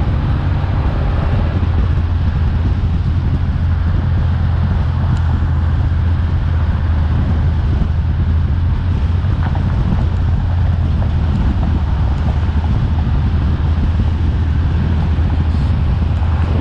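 A car cruising at a steady speed, with a constant low engine drone and wind rushing over the microphone.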